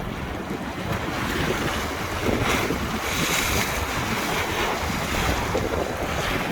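Choppy river water splashing in waves, with a couple of brighter swells of splashing about two and a half and three and a half seconds in. Strong wind buffets the microphone with a steady low rumble.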